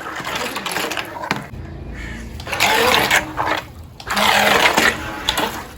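Small electric motor driving the fan of a homemade RC boat, whirring in uneven bursts that start and stop.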